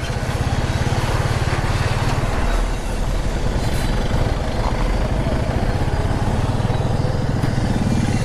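Motorcycle engine running steadily while riding over a rough dirt road, heard from the rider's position with a constant rushing noise over the engine's low, fast throb.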